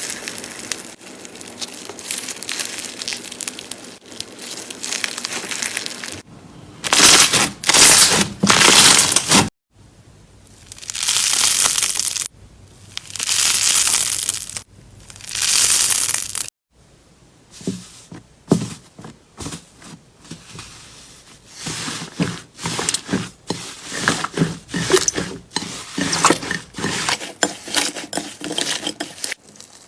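Slime being squeezed and pressed by hand, making crunchy, crackling sounds in several takes that cut off abruptly. The middle takes are loud, dense crunching, and the last stretch is a rapid run of sharp clicks and pops.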